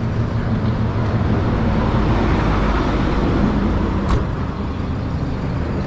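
Road traffic: motor vehicle engines and tyre noise running steadily, swelling a little about halfway through.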